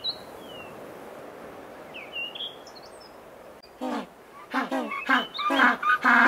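African penguins calling over steady background noise: a few faint high chirps, then from about four seconds in a quickening run of short honks that leads into a long, steady braying call near the end.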